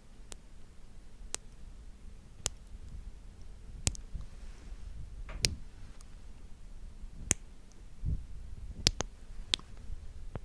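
Sparse sharp clicks of close-miked ASMR trigger sounds, about eight at uneven spacing, over a faint low rumble.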